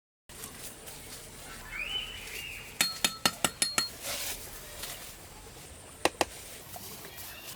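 Light clinks of hard objects, ringing a little: a quick run of about six in a second, then two more close together near the end.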